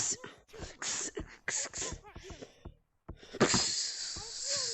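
A child's wordless vocal noises and breathy sounds, made in short bursts, followed about three and a half seconds in by a loud breathy rush with a voice inside it.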